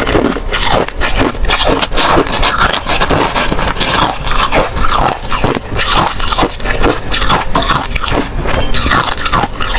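Ice being crunched and chewed close to the microphone: a continuous run of sharp cracking and grinding as the cubes break between the teeth, with wet mouth noises between bites.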